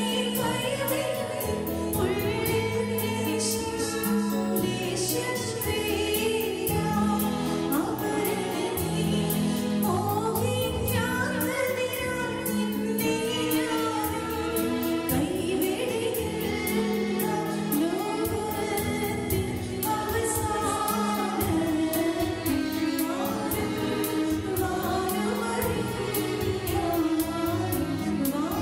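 A choir singing a church hymn with instrumental accompaniment and a steady light ticking beat.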